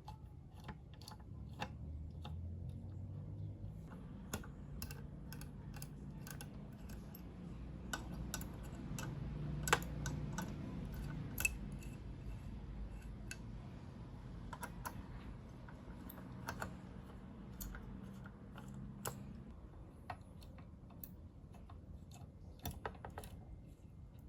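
Irregular small clicks and taps of hand tools and small parts being handled while a graphics card is worked on, over a faint low rumble.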